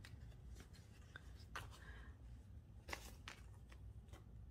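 Faint rustling and crinkling of paper banknotes being handled and slid into a clear plastic cash envelope, with a few soft scattered ticks.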